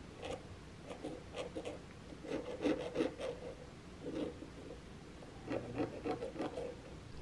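Scratch awl scraping along the edge of a brass toe plate, scoring its outline into a leather sole to mark where the plate will be inset. It comes as short, irregular scratching strokes in several bursts.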